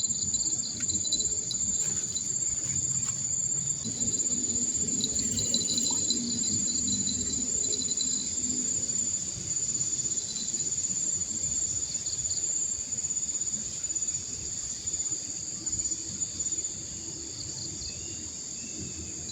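A steady, high-pitched chorus of insects trilling without a break, over a low rushing background.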